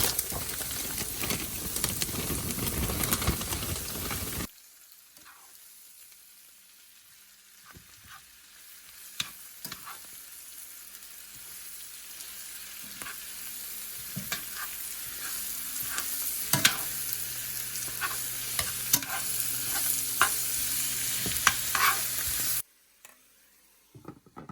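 Spinach sizzling in a pan with butter, olive oil, onion and garlic as it is stirred, with scraping and clicks of the utensil on the pan. The sizzling is loud at first, cuts off abruptly about four seconds in, comes back much quieter with scattered clicks and slowly grows louder, then cuts off again near the end.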